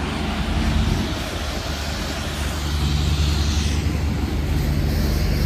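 Truck's diesel engine running steadily, a low even drone with no change in speed.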